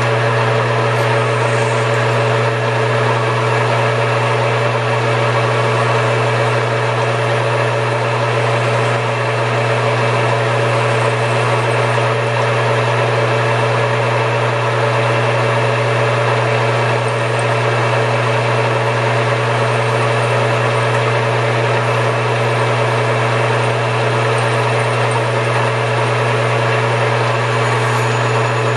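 Metal lathe motor running steadily with an even hum and whine, with no change in speed.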